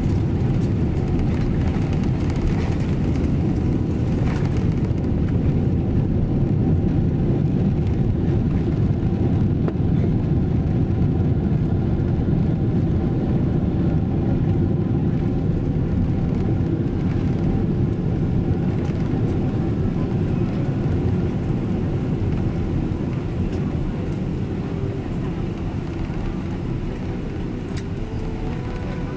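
Cabin noise of a Boeing 777-300ER rolling out on the runway after touchdown: a steady low rumble of its GE90 engines, airflow and wheels with a faint whine. It eases gradually over the second half as the aircraft slows.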